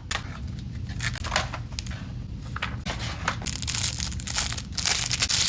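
Shipping packaging being torn open and crinkled by hand: a run of irregular rustling and tearing noises that grow louder and fuller in the second half.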